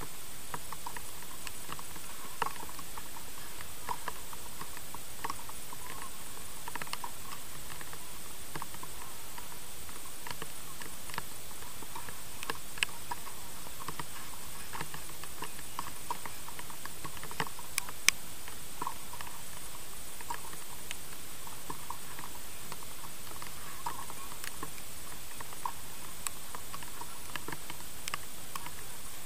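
Tennis balls struck by rackets and bouncing on a clay court: scattered sharp knocks, faint behind a steady hiss, the sharpest about 18 seconds in.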